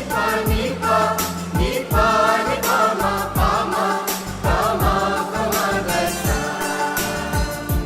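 A choir singing a Christmas carol over a musical accompaniment, with repeated deep drum hits and sharper percussion keeping the beat.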